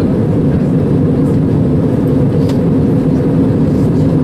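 Passenger jet cabin noise in flight: the engines and the rush of air past the fuselage heard from a window seat as a steady low rumble.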